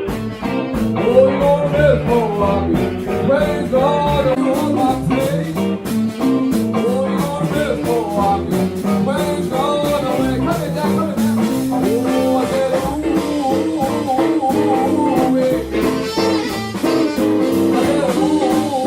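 Blues music: a singer over guitar, playing steadily throughout.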